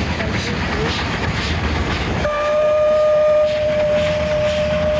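A train running with a regular rhythmic beat. About two seconds in, a locomotive whistle starts suddenly and sounds one long, steady note that holds on.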